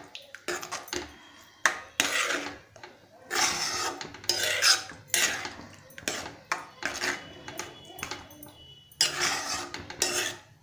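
A metal spoon stirring and scraping thick spinach paste around a metal kadhai. It goes in repeated strokes, about one a second, with a few sharp clinks of spoon on pan.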